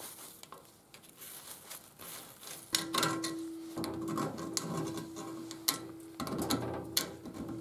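Screwdriver tip scraping and clicking inside the threaded swing-arm pivot bore of a motorcycle frame, picking out crumbs of coating that the sandblasting and coating left in the thread: a run of short, irregular scratches. A faint steady tone runs underneath.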